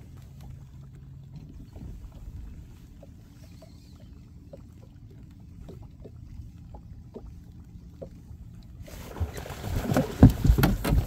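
A low steady rumble with faint scattered ticks, then, about nine seconds in, loud irregular splashing at the water's surface close to the boat: a musky striking the lure and thrashing near the boat.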